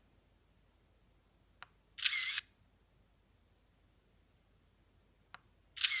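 SJ1000 action camera's electronic shutter sound, taking a photo twice, each fired from its wireless remote: a short click, then the brief shutter sound a moment later, about two seconds in and again near the end.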